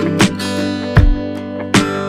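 Background music: strummed acoustic guitar chords over a steady beat.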